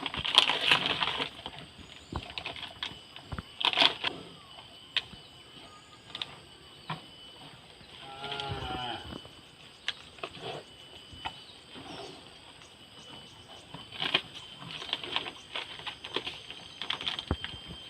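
Cows chewing durian seeds, with irregular crunches and sharp cracks as the hard seeds break. A short call comes about eight seconds in.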